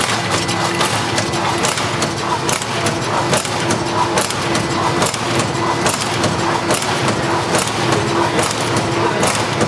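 Automatic powder and liquid sachet filling and packing machine running through its cycles: a steady mechanical clatter with a sharp clack a little more often than once a second, and a short hum that switches on and off in step with it.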